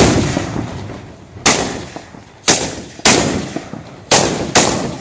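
Mascoli, small iron gunpowder mortars set in a row on the street, firing one after another as the fuse burns along the line: six sharp, loud blasts, each dying away with an echo, irregularly spaced about half a second to a second apart.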